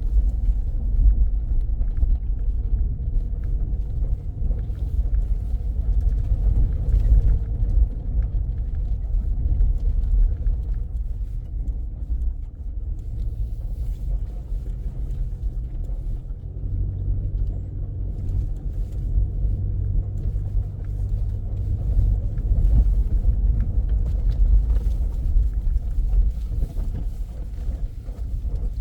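A vehicle driving: a steady low engine and road rumble, with the engine note becoming steadier and more distinct about halfway through.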